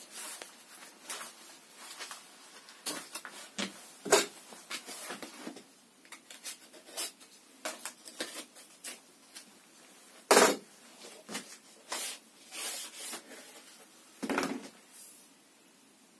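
Cardboard chainsaw box and its packaging being rummaged by hand: an irregular run of rustles, clicks and knocks as parts are lifted out, with two louder knocks in the second half.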